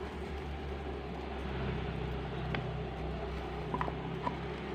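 Palm-sugar syrup boiling hard in a stainless steel pot on a gas stove, a steady bubbling rumble as grated coconut is poured in, with a few light clicks.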